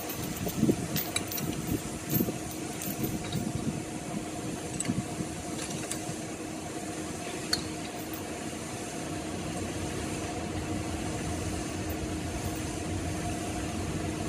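Light metal knocks and clinks as a steel ring is handled and fitted over a pipe clamped in a bench vise, mostly in the first few seconds, with one sharp click about halfway through. Under them runs a steady machine hum.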